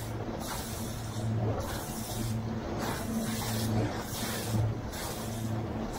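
Small boat's engine running with a steady low hum, under a wash of wind and water noise.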